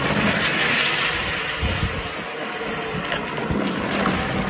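Beneo Drift-Car 24V children's electric go-kart driving over concrete: its electric drive motors run under a steady rushing noise from the wheels rolling over the rough slabs.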